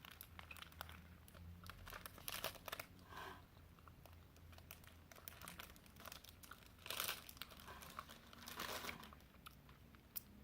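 Faint, intermittent crinkling of a plastic snack wrapper being handled, with a few slightly louder rustles.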